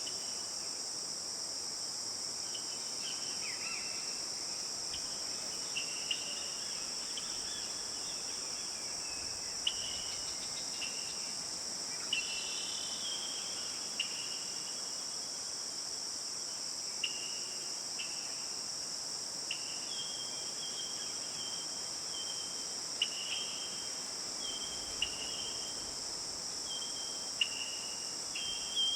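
Forest ambience: a steady high-pitched insect chorus, with short bird chirps that come every second or two.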